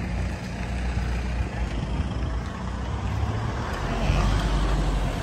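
Steady low hum of a running vehicle engine, with an even rushing noise over it.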